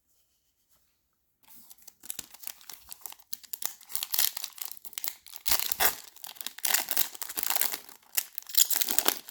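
A foil trading-card pack being torn open and its wrapper crinkled, starting about a second and a half in.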